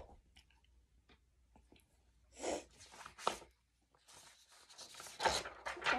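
Rustling and handling noises of paper and cards, in irregular short bursts that grow busier in the second half.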